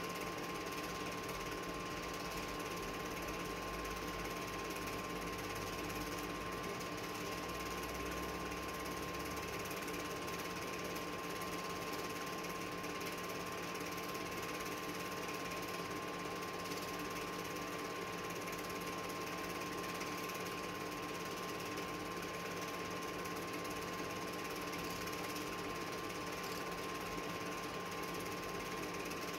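Film projector running, a steady mechanical whirr with a constant hum, as an old silent cine film is played.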